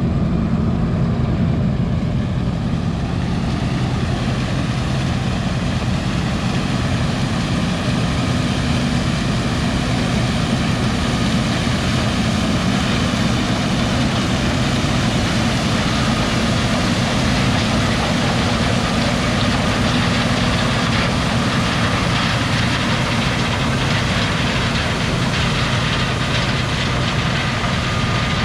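Combine harvester running steadily: a heavy diesel engine's low hum under the even noise of the machine at work.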